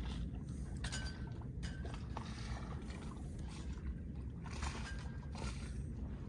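Small sailboat under way in light wind: a steady low rumble of wind and water with scattered clicks and a couple of brief squeaks from the rigging and deck fittings.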